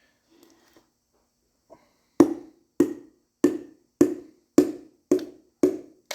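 Seven even knocks, a little over half a second apart, starting about two seconds in: a piston being tapped down through a ring compressor into the cylinder bore of a 360 V8 block.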